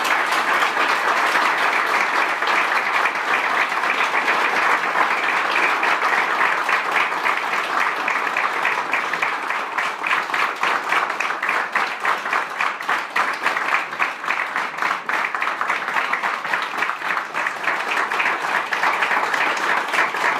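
A roomful of people applauding at length, a dense clapping that holds steady; in the second half individual claps stand out more as it thins a little.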